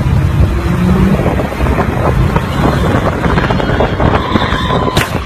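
Wind buffeting the microphone over engine and road noise from a moving car, with an engine note rising briefly about a second in. A sharp knock near the end.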